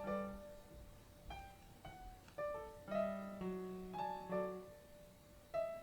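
Soft piano music: single notes and small chords are struck every half second or so, each ringing and fading before the next.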